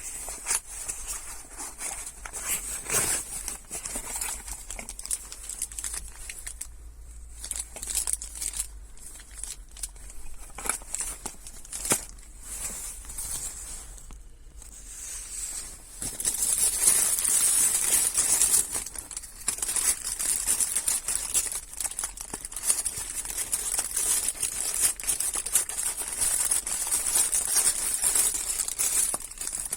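Handling noises of hands working: rustling and crinkling with many small clicks, and a steady high hiss that grows louder about halfway through.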